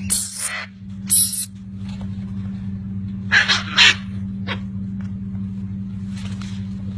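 A parrot giving short, harsh squawks, a pair close together about three seconds in and a fainter one near the end, over a steady low hum.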